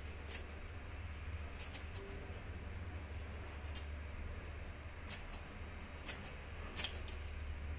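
Kitchen scissors snipping fresh chives, a series of short crisp snips at uneven intervals, over a low steady hum.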